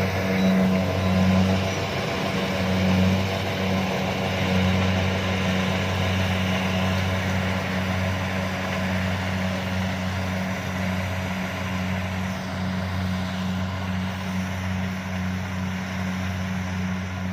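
Kubota DC-70 combine harvester's diesel engine running steadily, a constant low drone with machinery noise above it.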